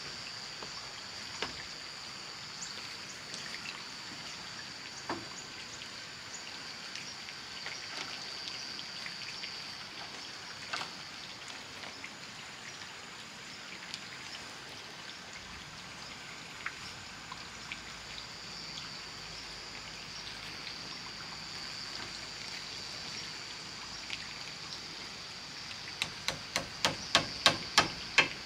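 Hammer blows: a quick run of about ten strikes near the end, getting louder, over a steady high-pitched background hum and a few scattered single taps.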